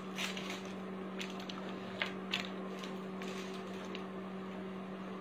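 Plastic jewellery packets and pieces being shuffled on a table: scattered light crinkles and clicks, the sharpest about two seconds in, over a steady low hum.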